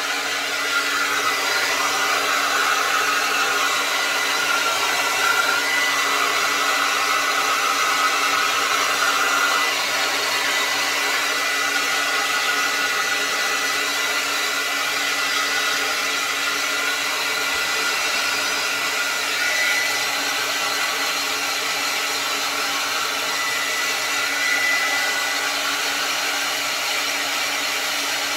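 Handheld hair dryer blowing steadily as wet hair is dried over a round brush: an even rushing hiss with a thin steady whine, a little louder during the first third.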